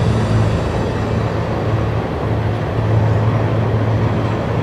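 Steady running noise of a moving vehicle heard from on board, an even rumble with a low hum held throughout.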